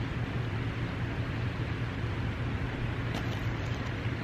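Steady outdoor background noise: an even hiss with a low hum under it.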